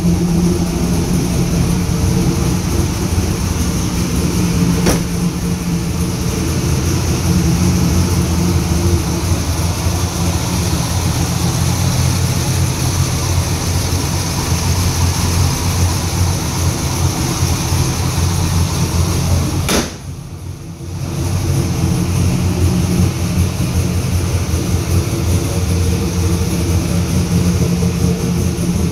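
2002 Pontiac Firebird WS6's 5.7-litre LS1 V8 idling steadily once warmed up, its exhaust cutouts closed so it runs through the mufflers. The sound dips briefly about twenty seconds in.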